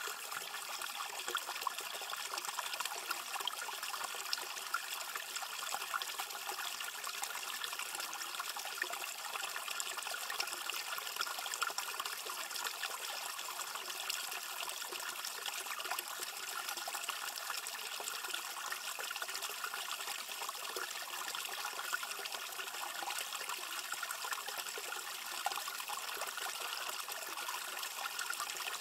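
Small spring-fed stream trickling and splashing steadily over a rock into a shallow pool.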